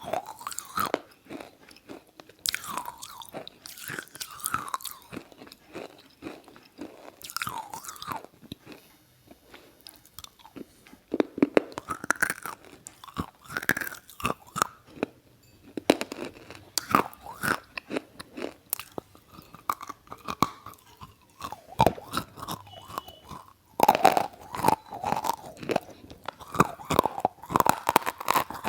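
Irregular wet crunching and crackling, a dense run of sharp clicks with short squelchy sweeps, growing busier and louder for the last few seconds.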